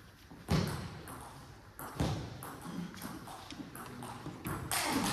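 Table tennis balls clicking off tables and bats, with a few louder knocks about half a second in, two seconds in and near the end.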